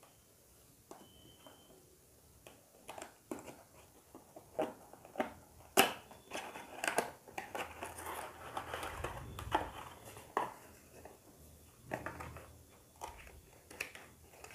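Cardboard earbud packaging being opened by hand: scattered taps and clicks of the box, with a few seconds of rustling and sliding about halfway through as the inner tray comes out of the outer box.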